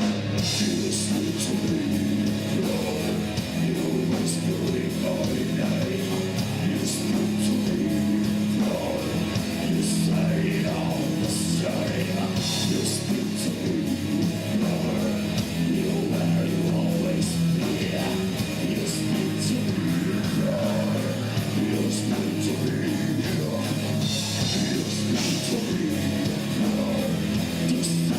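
Heavy rock music with distorted electric guitars, drums and cymbals, playing continuously.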